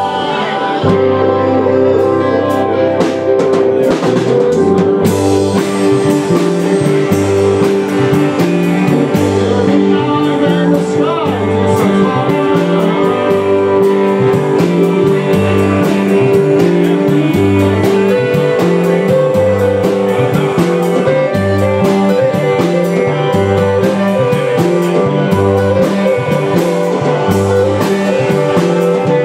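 Live band playing: electric guitars, bass and drum kit, with a man singing into a microphone over a repeating bass line.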